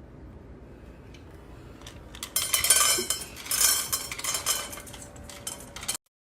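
Dishes and cutlery clattering and clinking in a quick run of knocks, starting a little over two seconds in and cutting off suddenly after about three and a half seconds.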